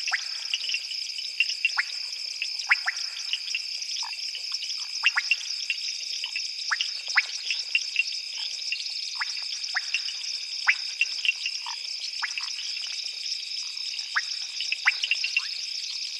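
Night chorus of frogs and insects: a steady high-pitched trilling drone overlaid with short, sharp frog calls at irregular intervals, about two a second.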